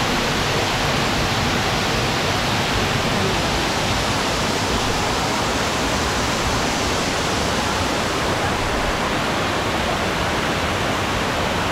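Steady rushing of water from a man-made waterfall pouring into a rock pond.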